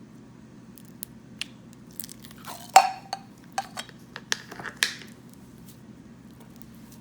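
Slime being handled and played with: a run of sharp pops, clicks and crackles from about one to five seconds in, the loudest about three seconds in.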